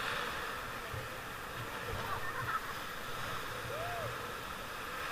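Steady rushing noise of river water around a drifting raft, with faint distant voices.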